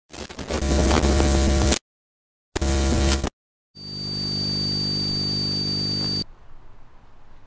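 Edited glitch-style intro sound effect laid over VHS static: two loud distorted noise bursts, each cut off abruptly into dead silence, then a steady electrical hum with a thin high whine, like an old TV set, that cuts off suddenly about six seconds in, leaving faint outdoor background sound.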